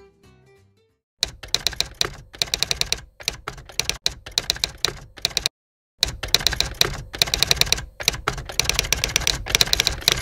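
Manual typewriter typing in fast runs of key clacks, with a short break about halfway through, then stopping abruptly near the end. Faint guitar music fades out in the first second.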